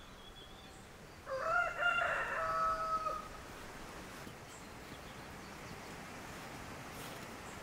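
A rooster crowing once, one drawn-out call of about two seconds starting about a second in.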